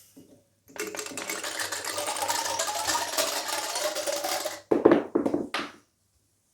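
Steel ball bearings clattering through a kinetic art sculpture in a dense, rapid rattle of clicks for about four seconds, followed by a few separate louder knocks.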